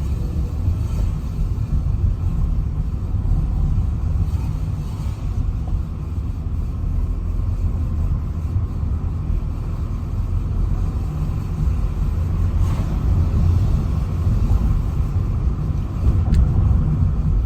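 Suzuki Swift driving forward, heard with the windows open: a steady, loud rumble with a continuous metallic scraping from the brake, caused by a small stone lodged in the brake assembly.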